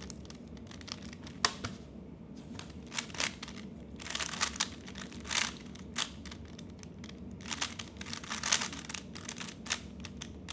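A plastic 3x3 Rubik's cube being turned fast in a timed speed solve: irregular clusters of quick clicking layer turns with short pauses between them.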